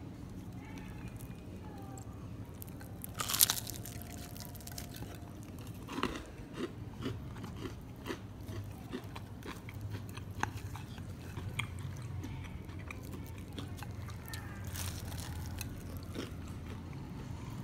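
Crispy, floss-coated fried chicken crunching and crackling as fingers tear it apart. There is a series of sharp crackles, the loudest about three and a half seconds in.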